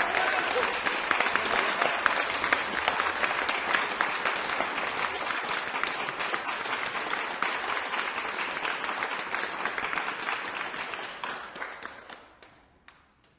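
A crowd applauding with dense, steady clapping. It dies away over the last two seconds into a few scattered claps.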